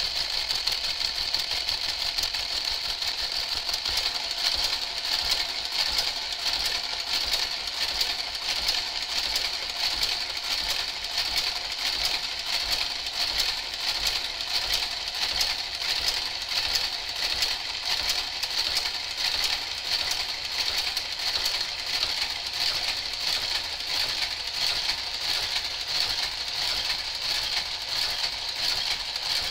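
A Brother garter carriage running along a Brother 930 knitting machine's needle bed, working needle by needle to cast on: a steady mechanical run with rapid, even clicking.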